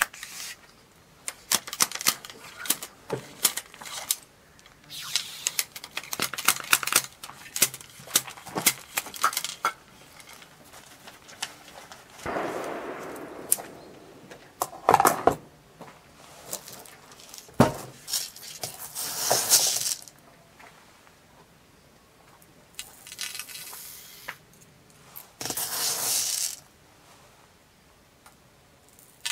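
A muzzle-loading double shotgun being loaded by hand: many metallic clinks and taps of the ramrod and brass loading tubes at the muzzle, then three longer rushing sounds as the charge is poured down the barrel.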